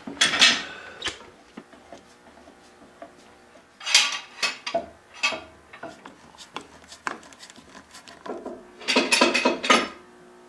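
Steel bar clamps clinking and clanking as they are set over wooden cauls and screwed down on a freshly glued veneer panel. The sound comes in three short bursts of rapid metallic clicks: near the start, about four seconds in, and near the end.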